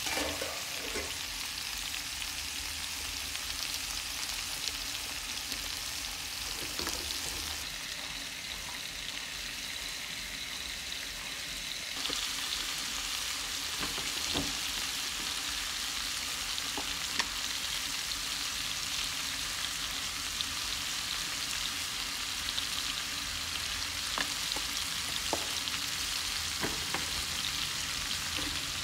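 Papaya cubes sizzling as they stir-fry in a nonstick pan, with wooden chopsticks turning them and now and then clicking against the pan. The sizzle grows louder about twelve seconds in.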